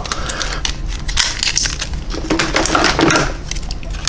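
Stiff plastic blister packaging crackling and snapping as it is cut and pried open with scissors: a dense run of quick crackles and clicks.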